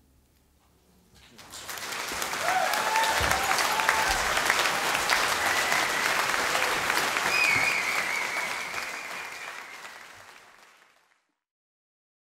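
Concert audience applauding: the clapping swells about a second in, with a few cheers and whistles on top, holds, then fades away and stops near the end.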